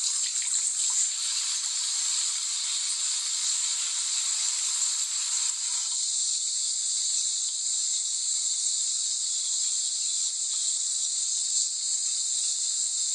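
Tap water running into a sink, a steady hiss. The lower part of the rush drops away about six seconds in, leaving a thinner hiss.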